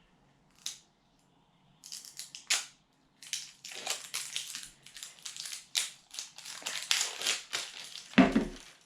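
Wrapping on an L.O.L. Surprise! Lils blind ball crinkling and crackling as it is peeled off, in a dense run of crackles after a short quiet start, with a duller knock near the end.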